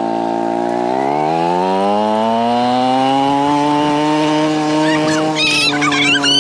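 Dirt bike engine running under throttle, its pitch rising steadily from about a second in as the bike speeds up, then holding high.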